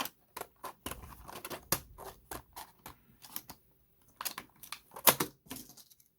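Scissors snipping and crunching through a padlock's stiff plastic clamshell packaging, in a run of irregular sharp clicks and snaps, with the loudest snip about five seconds in.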